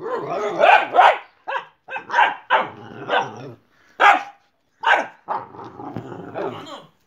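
Boxer dog barking repeatedly, about one or two barks a second.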